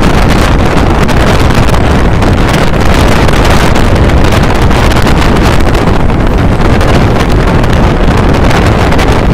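Loud, steady wind rushing over a microphone held outside a moving Mumbai suburban electric local train, with the train's running noise mixed in beneath.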